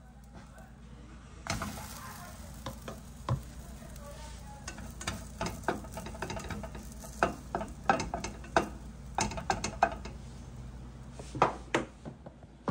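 Plastic spatula scraping and clicking against a stainless steel frying pan as a pancake is loosened and flipped, over a faint sizzle of frying batter. The clicks come in irregular clusters.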